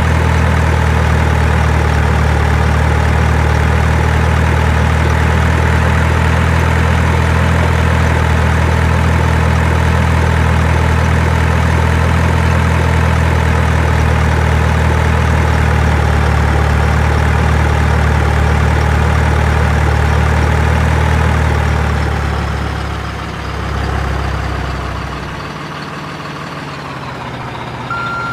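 Heavy truck engine idling steadily. About 22 seconds in it drops away to a lower, thinner sound, and near the end a truck's reversing beeper starts.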